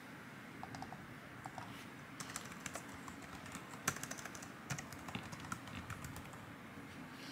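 Typing on a slim, low-profile white computer keyboard: quick key clicks, a few scattered at first, then a busy run from about two seconds in, with one sharper keystroke near the middle.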